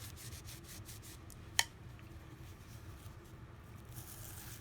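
Faint wiping and small scrapes on an iPhone 6 Plus's frame as it is cleaned with cleaning solution, with light ticks early on and one sharp click about a second and a half in.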